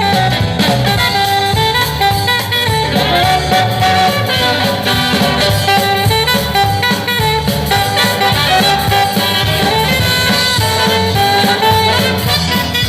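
Swing jazz band with brass and saxophones playing, a live recording played back from a reel-to-reel tape master through studio monitors with the bass boosted.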